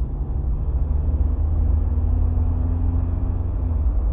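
2020 Jeep Wrangler Rubicon with the 2.0-litre turbocharged four-cylinder, heard from inside the cab while driving: a steady low engine and road rumble. A faint engine tone rises slightly midway and fades about three and a half seconds in.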